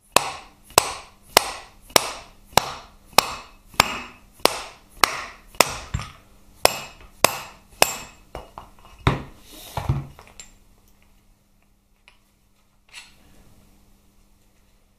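Nylon-faced hammer striking the shaft ends of a Harley-Davidson Twin Cam transmission in steady, even blows, about one and a half a second, knocking the main shaft and countershaft out of the trap door bearings. The blows stop about ten seconds in, followed by a few light knocks as the freed gear shafts are handled.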